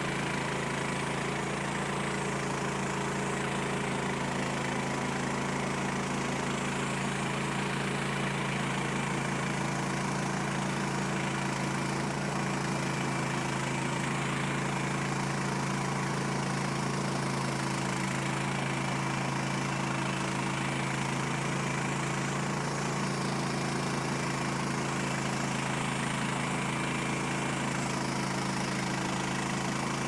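Band sawmill's engine running steadily at an even pitch, with no change in speed.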